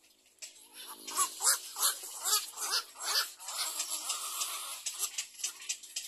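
Little egret chicks begging at the nest while being fed: a quick series of harsh chattering calls starting about a second in, with one longer rasping call in the middle, among steady clicking.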